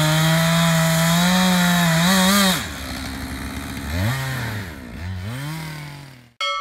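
Chainsaw running at full throttle, its pitch wavering under load, then dropping back about two and a half seconds in. It is revved up and down twice at lower speed before the sound cuts off abruptly near the end.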